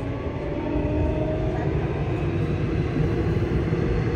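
Subway car running, with a steady low rumble and the whine of its Mitsubishi IGBT-VVVF traction inverter and motors, several tones rising slowly in pitch.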